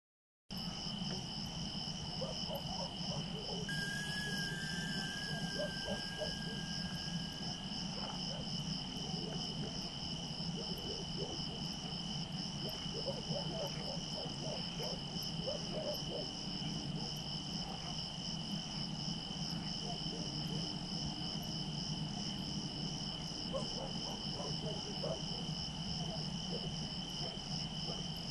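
Night chorus of crickets chirping without a break, two high steady pitches, one of them pulsing rapidly, over a steady low hum.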